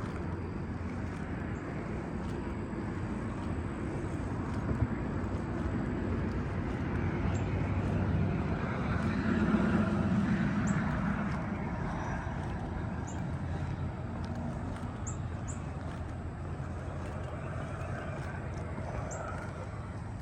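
Road traffic: a vehicle passing, its noise swelling to its loudest about halfway through and then fading, over a steady background hum.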